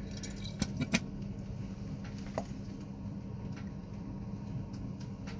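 A few light clicks and taps of a glass battery hydrometer being handled in a cell's filler hole, twice in the first second and once more about two and a half seconds in, over a low steady hum.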